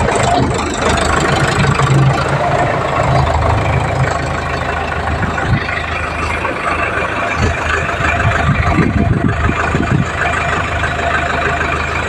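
Indo Farm tractor's diesel engine running steadily while its front loader boom is raised high.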